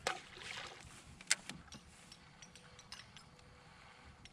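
Brass-bladed TR Custom flaptail topwater lure working across calm water on the retrieve: a faint splashing wash with scattered clicks and ticks, the sharpest click a little over a second in.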